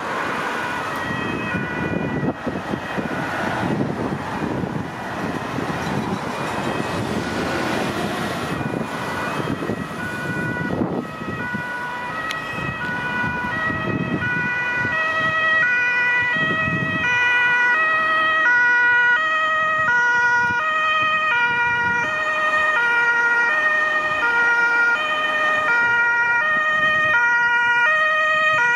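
Ambulance's German two-tone siren (Martinshorn) alternating steadily between two notes. It is half-buried under passing traffic at first, then grows louder and clearer from about halfway as the ambulance approaches.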